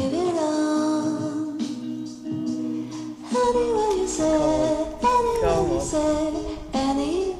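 Background music: a song with a sung vocal melody over sustained instrumental notes.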